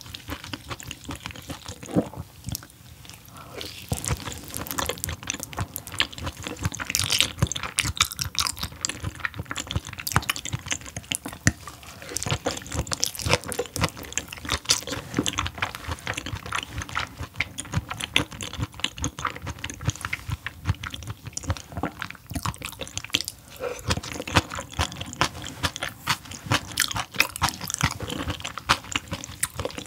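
Close-miked chewing of raw fish sashimi: a steady run of quick, wet mouth clicks and smacks.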